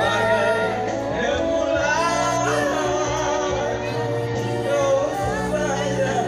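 A song playing: a singer's voice over a steady instrumental accompaniment.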